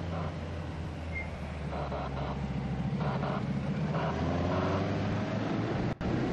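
Engine of a camera vehicle following a racing cyclist, with a steady hum and wind noise; the engine pitch rises briefly as it accelerates. The sound cuts out for a moment near the end.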